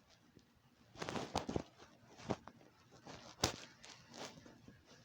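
Handling noises from homemade slime being pulled and squeezed: scattered soft crackles and rustles with a few sharp clicks, the sharpest about three and a half seconds in.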